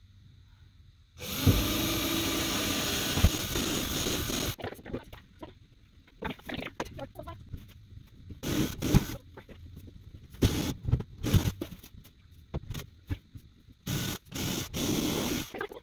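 Cordless drill running steadily for about three seconds, boring a pilot hole into the wooden wall. It is followed by a run of short, irregular scrapes and rustles as a screw-in eye hook is turned into the hole by hand.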